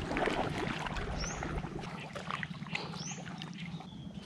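Muddy water sloshing and splashing around people wading chest-deep and feeling along the bottom with their hands, with a few short, high bird chirps.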